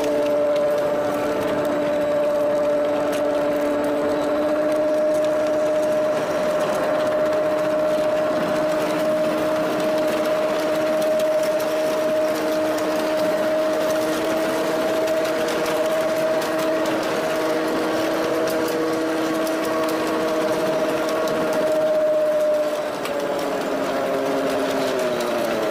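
Homemade ride-on mini train rolling along its track: a steady mechanical whine with an even rattle from the steel wheels and running gear, the whine dropping in pitch near the end.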